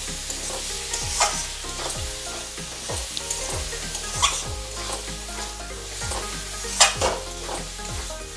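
Metal spatula stirring and scraping mashed jackfruit around a metal kadhai while it sizzles over the flame, with sharp scrapes of the spatula on the pan, the loudest about seven seconds in.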